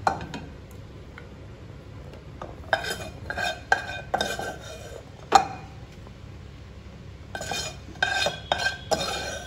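A metal spoon clinking against steel cookware and a serving dish, in short runs of sharp clinks with a brief metallic ring; the loudest is a single knock about five seconds in.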